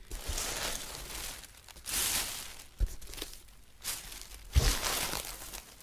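Crinkly shredded paper packing fill rustling in several bursts as handfuls are scooped out of a cardboard box and pushed into a bag, with a couple of dull bumps against the box.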